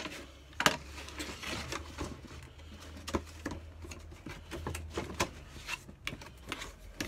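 Cardboard box being opened by hand: flaps pulled open and cardboard packing rustling and scraping, with scattered light knocks and taps and one sharper knock about half a second in.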